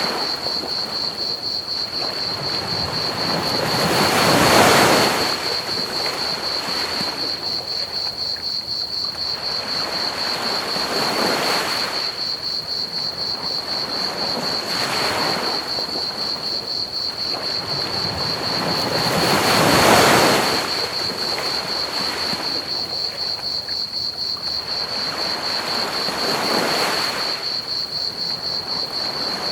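Ocean waves breaking and washing on a beach in slow swells every few seconds, the biggest about five seconds in and again near twenty seconds. Underneath runs a steady high trill of crickets and an even hiss of pink noise.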